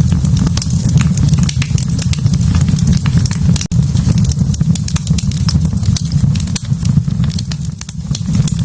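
Wood fire burning in a fireplace: dense, irregular sharp crackles and pops over a steady low rumble of flame. The sound cuts out for an instant a little over a third of the way in.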